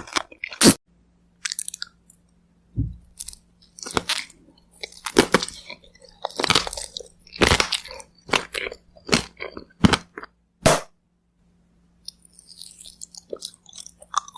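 Close-miked biting and chewing of kohakuto, Japanese crystal candy: a crisp crunch about once a second, giving way near the end to fainter, softer chewing.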